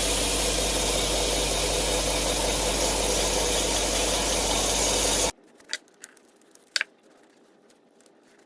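Belt grinder with a 320-grit belt running steadily, taking a very little off a hardened-steel multitool blade to get its lock to fit. It cuts off abruptly about five seconds in, followed by a few faint clicks.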